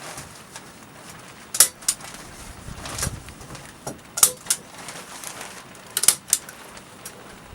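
Sharp clicks or knocks, mostly in close pairs, three times a couple of seconds apart, over a low rushing background.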